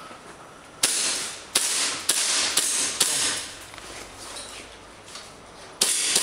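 Gas blowback (GBB) airsoft gun firing about five shots in quick succession over two seconds, then one more shot near the end. Each shot is a sharp crack followed by a short hiss.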